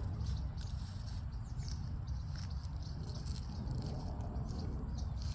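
Outdoor background with a steady low rumble of wind on the microphone and many scattered faint high ticks and rustles.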